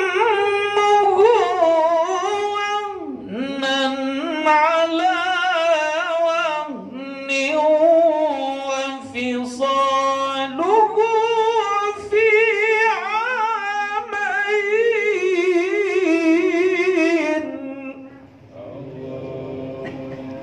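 A man reciting the Quran in melodic style into a handheld microphone, with long held notes ornamented by wavering pitch, in phrases split by short pauses. The recitation stops about three seconds before the end, and a quieter voice follows.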